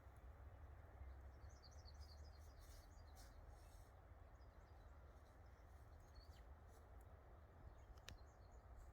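Near silence with faint, scattered bird chirps and a single sharp click near the end.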